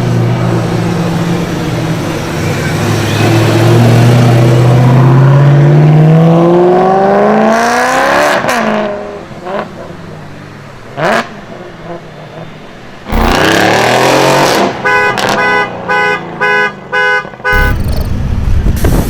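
Sports car engine accelerating hard, its note climbing steadily until the car sweeps past about eight seconds in; a second car passes quickly soon after. Near the end a car horn sounds in a quick series of short honks.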